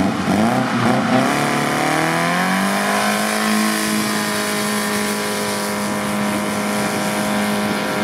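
Suzuki Samurai with a swapped BMW engine working hard on a deep-sand climb from a standing start. The revs rise and fall for the first two seconds or so, then the engine is held at steady high revs while the tyres spin and throw sand.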